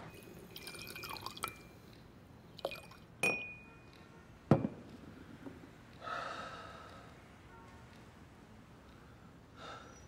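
Glassware handled: a few glass clinks, one ringing briefly, and a sharp knock about four and a half seconds in as something is set down. A short splashing run of liquid follows about six seconds in, as whiskey is poured into a glass tumbler.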